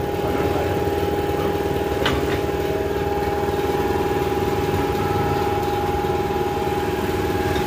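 Workshop piston air compressor running steadily with an even mechanical drone and hum, and one sharp click about two seconds in.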